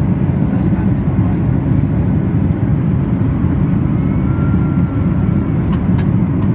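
Steady cabin roar of a Boeing 737-800 on descent, heard from a window seat: engine and airflow noise, deep and even. A few faint clicks come near the end.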